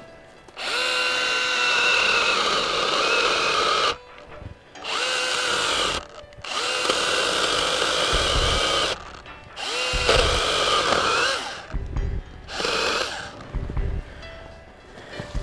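Makita MUC101D 18V cordless handy chainsaw cutting through a small tree trunk in about five bursts, stopping briefly between them. At each pull of the trigger the motor whines up in pitch as the chain bites into the wood. Low thuds come in over the second half.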